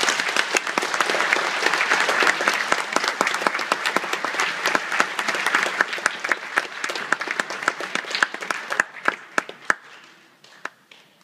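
Audience applauding, full at first, then thinning out over the last few seconds into a few scattered claps before it stops.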